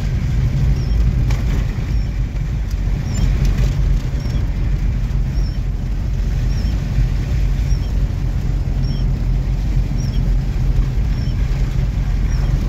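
Car driving on a muddy dirt road, heard from inside the cabin: a steady low rumble of engine and tyres. Faint short high squeaks repeat about every 0.7 s over it.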